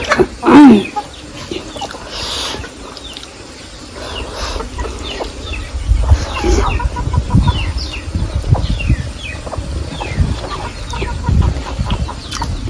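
Chickens clucking, with one loud squawk about half a second in, while small birds chirp in the background. Irregular low thuds sound close to the microphone and grow louder in the second half.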